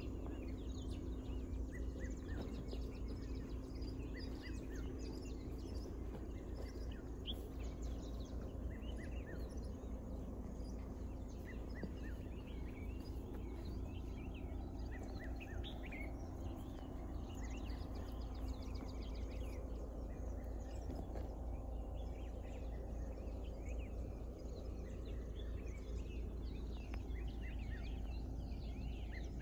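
Rural outdoor ambience: many small birds chirping on and off, a scattered chorus of short calls, over a steady low rumble.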